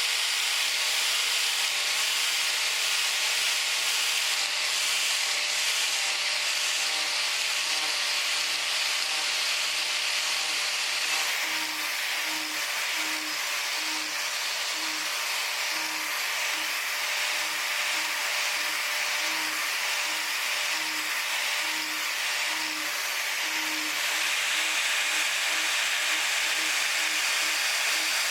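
Power-carving tool with a carving wheel grinding wood: a steady hissing grind, with a low motor hum that comes and goes in short pulses in the second half.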